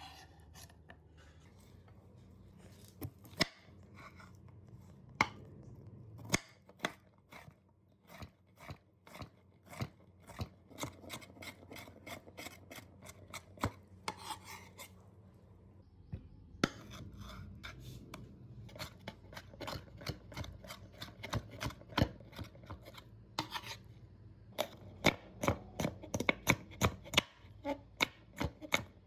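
Kitchen knife chopping cucumber on a wooden cutting board: a long run of sharp, irregular taps of the blade against the board, moving on to slicing a red onion near the end, where the taps come quicker and louder.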